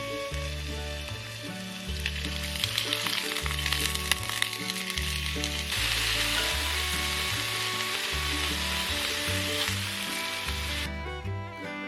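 Food sizzling in a cooking pot: crackling and spitting from about two seconds in, turning to a denser hiss about halfway, then cutting off abruptly near the end. Background music with a steady bass line plays throughout.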